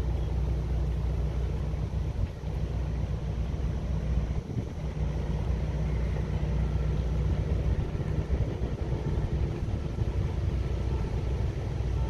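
Steady low rumble with no clear events in it, with faint thin tones now and then higher up.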